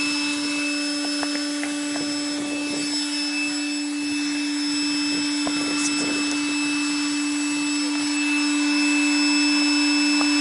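Electric inflatable-boat pump running with a steady hum, pumping up the boat's high-pressure air floor through a hose; it gets a little louder about eight seconds in.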